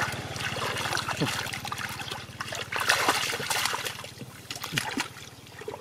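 Muddy shallow water splashing and trickling as hands grope through it and the mud, feeling for catfish. Irregular splashes, the loudest about three seconds in, easing off near the end.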